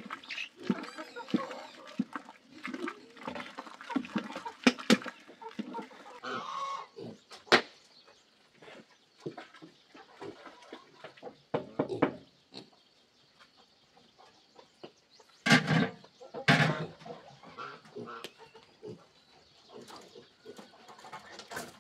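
A wooden stick scraping and knocking in a large steaming pan, then chickens clucking around a coop, with several loud knocks and thuds from work at the coop.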